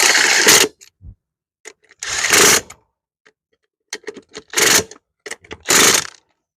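Ratchet wrench clicking in short rapid bursts with single clicks between, as lug nuts on a mower wheel are cross-tightened.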